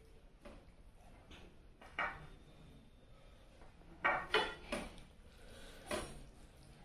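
Faint clinks and knocks of dishes being handled during a meal, a scattering of short taps with the loudest in a quick group of three about four seconds in and another about six seconds in.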